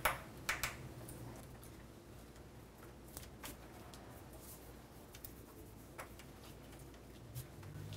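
Faint scattered clicks and taps of a small Phillips screwdriver and tiny screws being worked out of an iPhone 4's frame, a handful of sharp ticks a second or more apart over a low hum.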